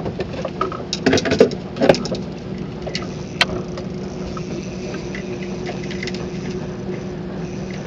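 Fishing rod and reel being handled on a small boat while a hooked catch is worked in: scattered sharp clicks and knocks in the first half, over a steady low hum.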